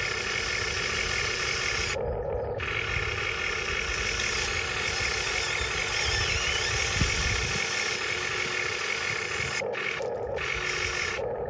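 Diecast Masters 1:20 CAT 330D L radio-controlled excavator running, with a steady engine-like drone while its boom and bucket move through a dig in gravel. The high part of the sound cuts out briefly twice, and there is a single click about seven seconds in.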